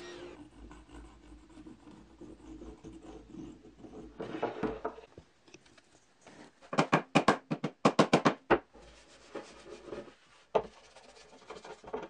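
Workshop hand-work on a wooden axe handle: a quick run of about eight short scraping or rubbing strokes of wood on wood or abrasive in the middle, with scattered knocks and clicks around it.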